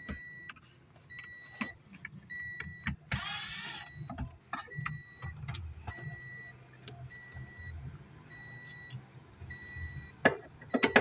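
A Toyota Yaris's warning chime beeps steadily, about one short beep a second, over a low steady hum. Clicks and rustling come from the floor carpet and trim being handled, with one loud rustle about three seconds in.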